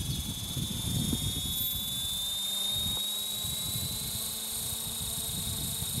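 Radio-controlled model helicopter's rotor head and drive spinning up on the ground: a high whine that rises slowly in pitch, over a low irregular rumble.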